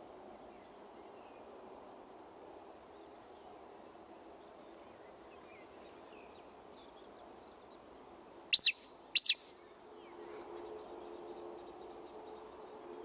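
Two loud, sharp, high squeaks about half a second apart a little over halfway through: the 'tsiwick' call of a roding Eurasian woodcock passing close by. Faint chirping of other birds underneath.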